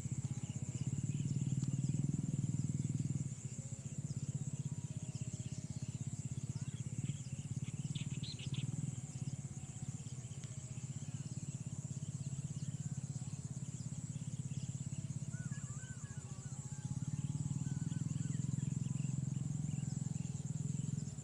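Marsh ambience: a steady high insect drone with a rough low rumble that swells about a second in and again near the end, and a few short bird chirps.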